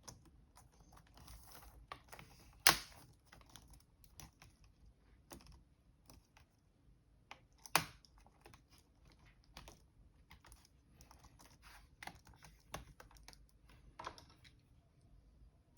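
Laptop keyboard keys being pressed in an irregular run of light clicks, as when a replacement keyboard's keys are tested, with two sharper, louder knocks about a third and halfway through.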